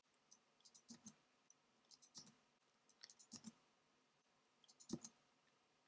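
Faint, scattered clicks of a computer mouse and keyboard, about half a dozen, the loudest near the end, as values are copied and pasted.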